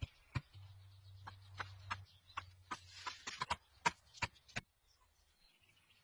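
Bamboo clicking and knocking: about a dozen sharp, irregular clacks of bamboo poles and slats being handled and stepped on, stopping about four and a half seconds in.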